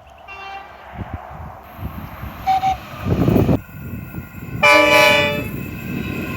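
Train horns: a faint horn early on, then a loud, short horn blast about two thirds of the way in, with the rumble of a train running past around it.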